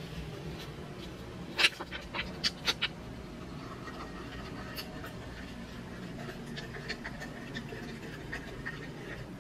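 Plastic spoon stirring a drink in a ceramic mug. A quick run of sharp clicks and clinks comes about one and a half seconds in, the first the loudest, followed by lighter scattered ticks against the mug.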